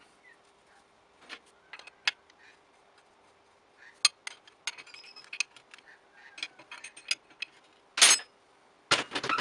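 A spanner and steel bolts clinking against a cast iron lathe faceplate and its connecting-rod fixture as the hold-down bolts are fitted and tightened from behind. A few scattered metallic clicks, then a quick run of clicks, then two loud metal knocks near the end.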